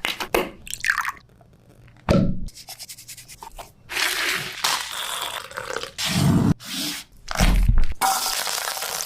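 Kitchen sounds of chicken being prepared and cooked: a string of sharp knocks and scrapes of utensils, with stretches of steady hissing, heaviest about four seconds in and again near the end.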